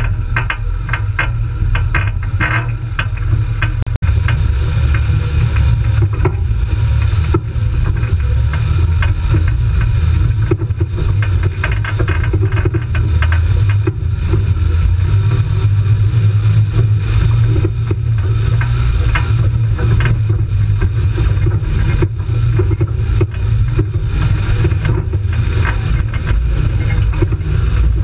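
Off-road jeep's engine running steadily as it climbs a rocky dirt track, with frequent knocks and rattles from the rough ground, most of them in the first few seconds.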